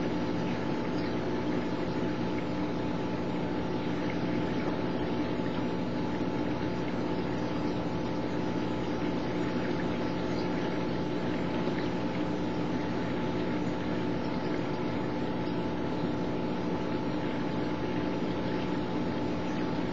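Steady mechanical hum over a constant rush of moving water, from a reef aquarium's pumps circulating the tank water.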